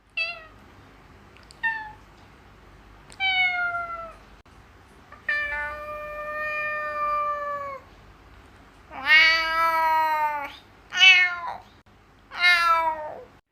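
A woman imitating a cat with her voice: a series of about seven meows of varying length, several falling in pitch, one long drawn-out meow in the middle and the loudest meows near the end.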